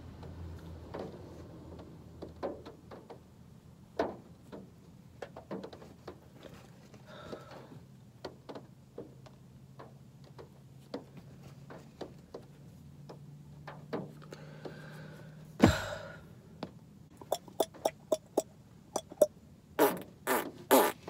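Mouth noises: scattered lip smacks and clicks, then air blown out of puffed cheeks through the lips in a few sharp pops near the end. There is one louder burst about two-thirds of the way through, and a faint low hum runs underneath.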